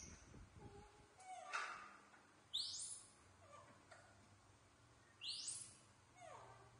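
Baby macaques giving several short, high squeaky calls, some sweeping sharply up in pitch and others sliding down.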